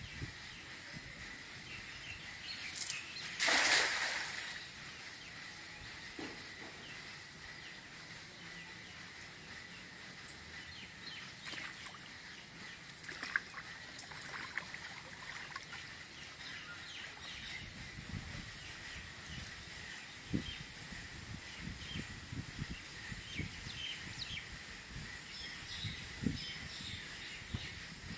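Cast net landing on a pond with one brief splash about three and a half seconds in, the loudest sound here. Later come soft water sloshes as he wades and hauls in the net's line.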